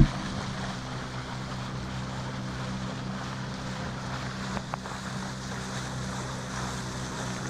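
Boat engine running steadily at an even pitch under wind and water noise, with two faint clicks about four and a half seconds in.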